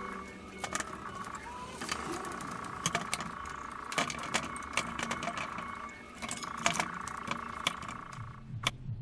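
One-handed bar clamps being fitted and squeezed tight around a glued-up wood blank: repeated clicks of the clamp triggers and clatter of the bars and plastic jaws against each other and the bench. A steady high hum sits underneath and cuts off shortly before the end.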